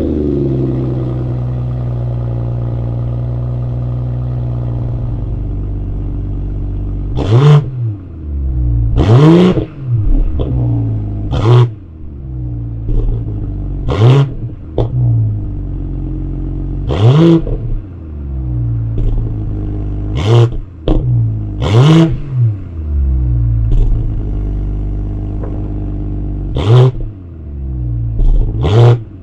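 BMW X3 M40i's turbocharged 3.0-litre inline-six idling steadily after start-up, then revved hard about eight times while the SUV stands still. Each rev climbs quickly and drops back to idle.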